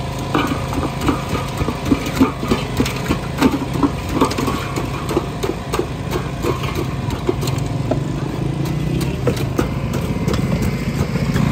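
An ice pick chipping a block of ice in a steel pot, about three sharp strikes a second, thinning out and stopping near the end. Under it runs a steady engine hum.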